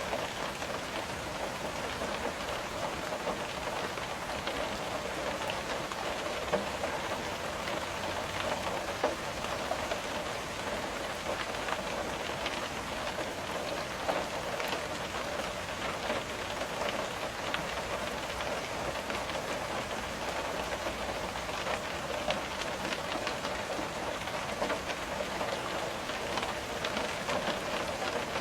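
Steady rain, with many small drops tapping on window glass and a couple of louder single taps.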